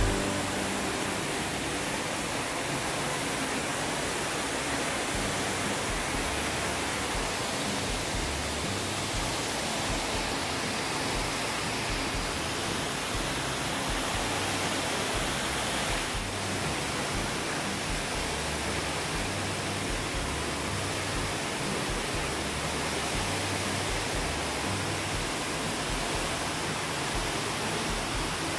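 Steady rushing of falling water from an indoor waterfall, even and unbroken.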